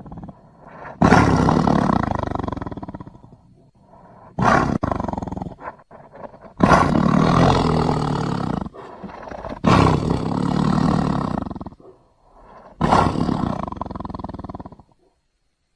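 Sea rhinoceros sound effect from SpongeBob SquarePants: a cartoon animal roaring, about five loud roars of one to two seconds each with short pauses between. The shortest roar comes a little before the middle.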